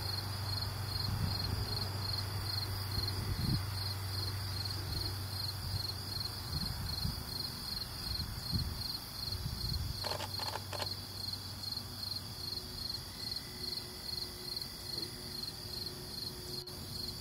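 A chorus of insects, such as crickets, chirping in a steady, evenly pulsing high-pitched trill that runs on without a break. A low steady rumble sits underneath for roughly the first half.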